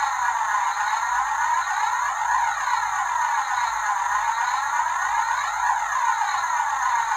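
An electronic siren-like wailing tone, gliding up and down in a steady cycle about every second and a half.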